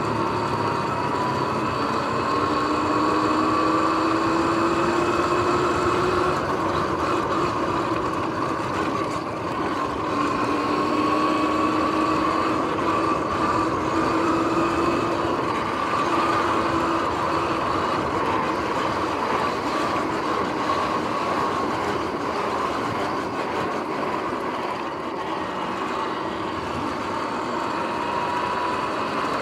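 Sur-Ron X electric dirt bike under way: a steady rush of wind and tyre noise, with the motor's whine slowly rising in pitch three times as the bike speeds up. The bike's drivetrain carries bearings that the owner calls noisy.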